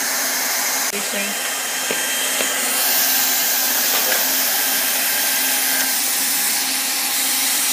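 Weldy 1600 W heat gun on an automatic hot air banner welder blowing hot air steadily through its nozzle: an even, hair-dryer-like rush with a faint steady hum beneath it.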